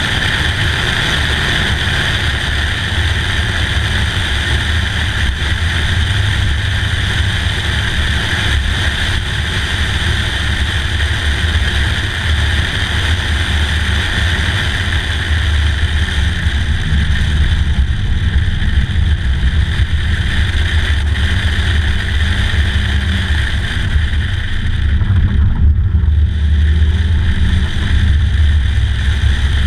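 Wind buffeting the microphone in the open cockpit of a stock 2003 Mazda Miata driven with the top down, over road noise and the car's four-cylinder engine running at a steady cruise.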